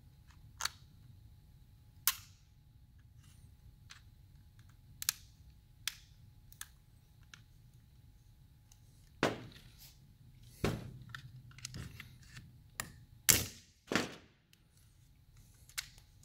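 Plastic parts of a Volvo I-Shift gear selector lever clicking and snapping as they are worked apart by hand: a few sharp clicks, then a run of louder snaps past the middle.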